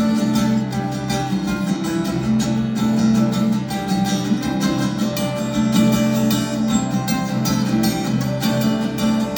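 Acoustic guitar played live in an instrumental passage without singing, with quick, even picked strokes over held chords.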